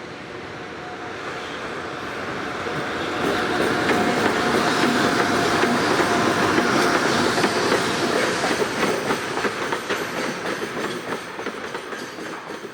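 A freight train passing, with wheels clacking over the rail joints. It grows louder over the first few seconds, is loudest in the middle, then fades.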